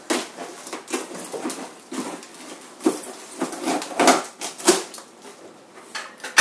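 A shipping package being opened and handled by hand: an irregular run of rustling, scraping and crackling, with several sharper snaps.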